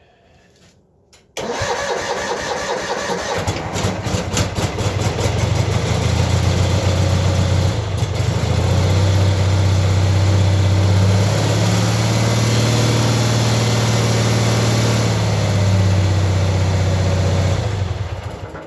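Cub Cadet 782 garden tractor engine being cold-started with a jump starter boosting its weak battery: the starter cranks with a fast rhythmic chug about a second in, the engine catches within a few seconds and runs steadily, then dies away near the end.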